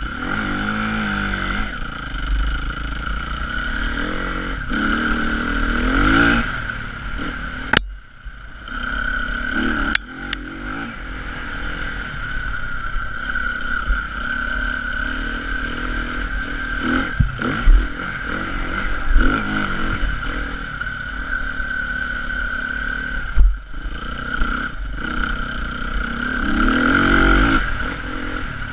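Enduro dirt bike engine revving hard and falling back again and again as the rider works the throttle and gears over a rough track, with the throttle shut briefly about eight seconds in. A few sharp knocks from the bike over bumps cut through the engine.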